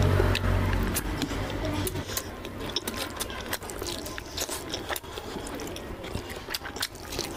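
Close-up wet chewing and lip-smacking of rice and soft, oily mutton fat curry eaten by hand: a fast run of sticky clicks and squelches. A low rumble underlies the first couple of seconds.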